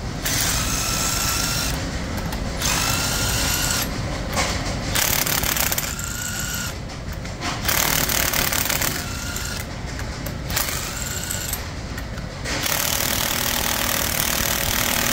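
Milwaukee M12 cordless tool on a socket extension loosening the cylinder-head bolts of a refrigeration compressor, running in about six short bursts with a rising whine in each, the last run longer near the end.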